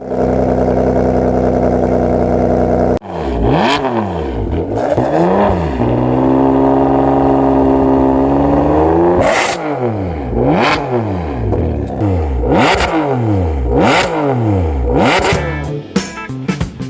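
Ferrari 599 GTB's 6.0-litre V12 being revved. A steady held note for about three seconds cuts off abruptly into repeated throttle blips, the revs rising and falling. A higher note is held and climbs slowly in the middle, then a string of sharp blips comes about a second apart.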